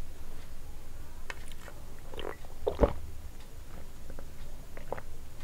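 Close-miked swallowing and gulping of someone drinking from a glass, with small wet mouth clicks scattered through and one louder gulp about three seconds in.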